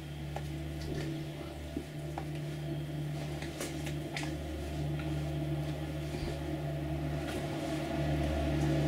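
Steady low electrical hum of room tone, with a few faint scattered clicks.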